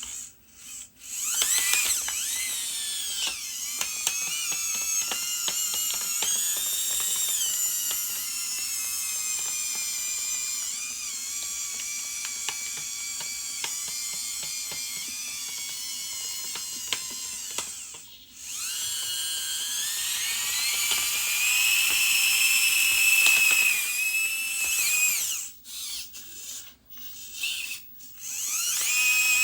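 Small electric motors and plastic gearboxes of radio-controlled construction models whining as they work, the pitch rising and falling with throttle. The motors stop briefly near the start, again a little past halfway, and several times in quick succession near the end.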